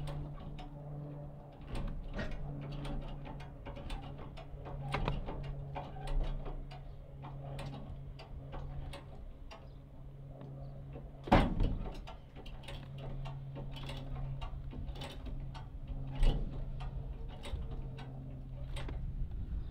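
Hand come-along (ratchet cable puller) being cranked under load while winching a car, its ratchet clicking with each stroke of the lever. Two louder metallic clunks come about eleven and sixteen seconds in, over a steady low hum.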